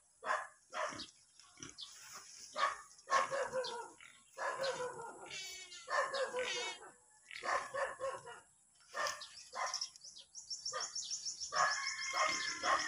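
A dog barking repeatedly in short barks, with a rapid high chirping twice.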